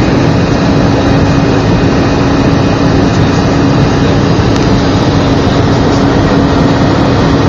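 Airbus A319 cabin noise: a loud, steady roar of the jet engines and airflow heard from inside the cabin, with a steady hum that fades out near the end.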